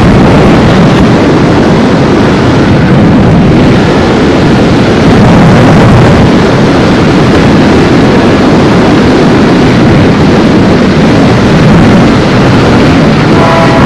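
Loud, steady wind rush buffeting a helmet-mounted camera's microphone while riding at speed. About half a second before the end, a steady tone of several pitches sets in over it.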